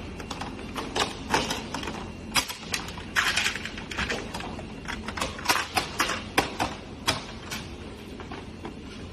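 Production-workshop clatter: irregular clicks and knocks, busiest about three seconds in, over a steady low machine hum.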